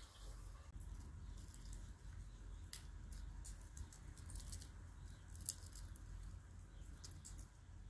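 Hands peeling the charred, papery skin off fire-roasted eggplants: faint crackling and squishing as the skin tears away from the soft flesh, with two sharper snaps.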